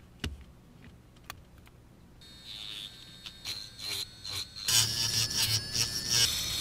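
A few sharp clicks as a toothpick is fitted into the chuck, then about two seconds in a small handheld rotary tool starts and runs with a steady high whine. From just under five seconds a fine metal tip scrapes the spinning toothpick in short, louder bursts, turning it down like a lathe.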